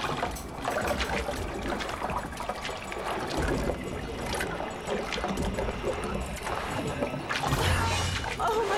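Water sloshing and trickling in a glass tank as a head moves about under the surface, growing louder for a moment near the end.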